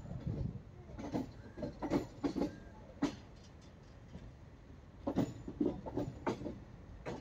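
Passenger train running with its wheels clacking over rail joints: irregular groups of sharp knocks over a low steady rumble, with a quieter stretch in the middle.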